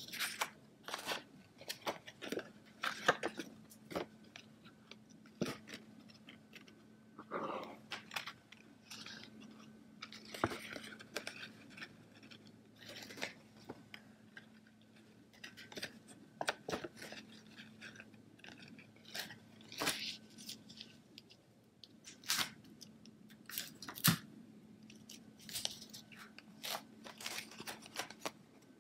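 Paper and twine being handled close up on a tabletop: irregular rustling, crinkling and light taps and scrapes as the twine is wrapped around the designer paper and taped down on the back.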